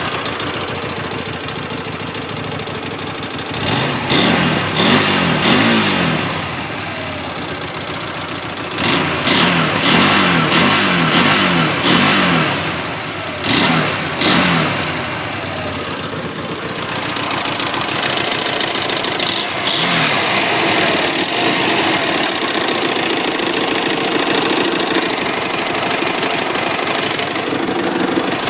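Hyosung GT250R's 250 cc V-twin engine idling with a clicking, clattering noise. It is revved several times in the first half, then idles steadily. The owner puts the clatter, heard at idle and low rpm only, down to valve clearance needing adjustment or a cam chain tensioner.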